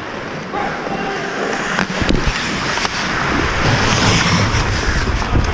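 Ice hockey skates scraping and carving on the ice, with a few sharp clacks and a low rumble building from about two seconds in.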